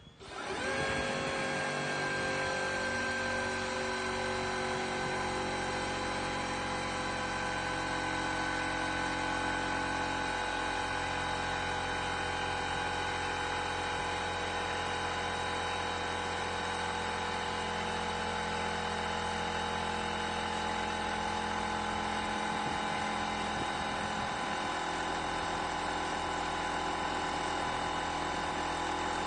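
Metabo HPT cordless air compressor starting abruptly and running steadily, its motor and pump making an even whine with several tones. The pitch sags slightly in the first few seconds and then holds steady.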